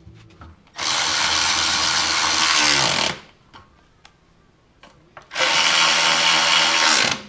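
Cordless power ratchet spinning a socket on the oil sump's bolts in two runs of about two seconds each, the pitch falling as the motor winds down at the end of each.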